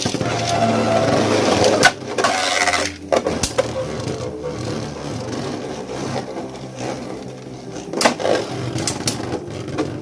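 Beyblade spinning tops whirring and scraping in a plastic stadium, with a few sharp clashes, over background music.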